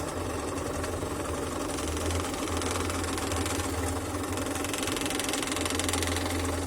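Electric scroll saw running steadily, its blade reciprocating rapidly as it cuts through wood.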